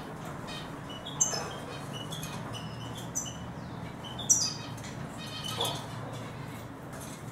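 Eurasian siskins chirping and twittering in scattered short, high notes, two of them louder, falling chirps about a second in and just past four seconds, over a steady low hum.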